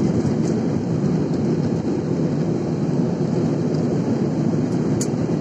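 Steady deep roar inside a jet airliner's cabin in flight: engine and airflow noise, with a faint click about five seconds in.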